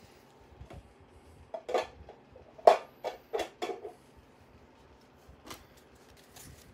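A few light clicks and knocks, most of them bunched together between about one and a half and four seconds in, with one more a little later, over a faint steady room hum.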